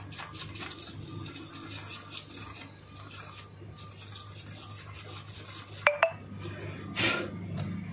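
Small bristle paintbrush scrubbing over a CCTV camera's circuit board to clean off dust: rapid scratchy brushing strokes. There is a sharp click with a brief ring about six seconds in.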